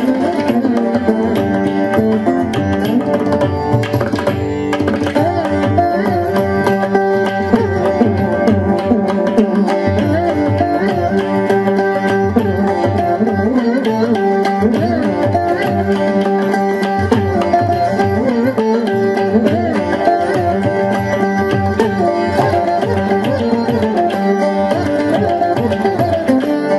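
Carnatic veena music, its notes sliding and bending over a steady drone, played with hand-drum percussion.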